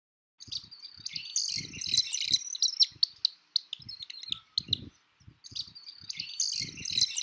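Birds chirping and calling in quick, high notes, with soft low thumps in between; it starts suddenly just under half a second in.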